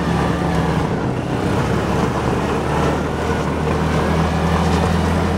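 Off-road buggy's engine running at a steady pitch while driving over sand, heard from inside the open cab.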